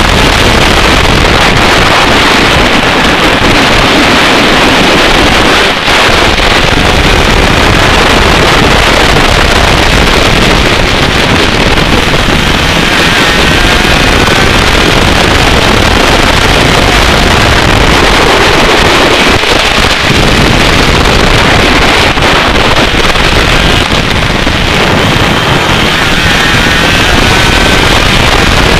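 125cc two-stroke kart engine running at racing speed, its pitch rising and falling through the laps, mostly covered by heavy wind rush on the onboard microphone. Loud throughout.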